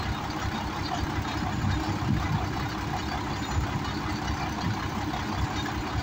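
Diesel truck engine running steadily, driving the truck-mounted hydraulic crane as its boom lifts a load on straps.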